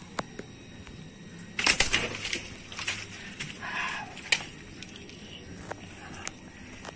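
Live catfish flopping and slapping its wet body against a concrete floor while being held down by hand: a few sharp smacks, with a loud flurry of slaps about two seconds in.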